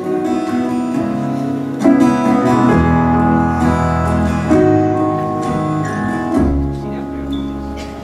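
Instrumental passage of a live folk song: steel-string acoustic guitar strummed, with violin playing long held notes over it.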